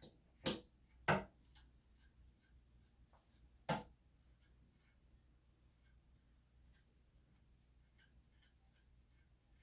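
Three sharp clicks, the second half a second after the first and the third about two and a half seconds later, with faint light ticks in between, from hands and grooming tools working on a puppy.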